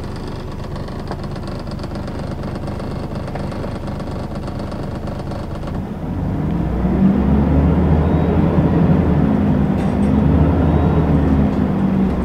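Scania L94UB city bus heard from inside the cabin: its 9-litre five-cylinder diesel and ZF automatic gearbox run steadily. About six seconds in it pulls harder and gets louder, the engine note rising and falling.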